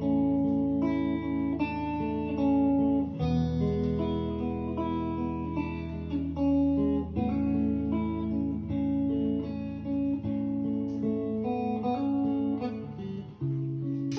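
Background music played on a plucked guitar, a run of melodic notes over a steady bass line.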